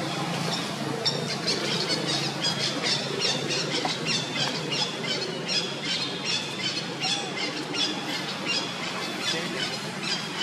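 Baby long-tailed macaque giving rapid, high-pitched distress squeals, about three or four a second, starting about a second in.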